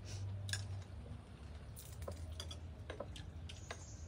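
Irregular light clicks and taps of chopsticks and spoons against bowls and plates during a meal, over a steady low hum.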